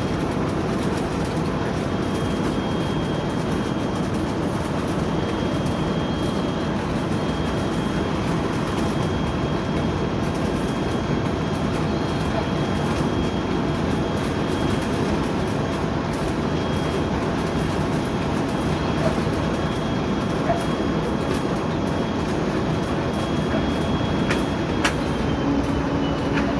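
TEP70 diesel locomotive running at speed, its 16-cylinder diesel engine under load, with a steady high turbocharger whistle over the rumble. The whistle dips slightly in pitch near the end, just after a single sharp click.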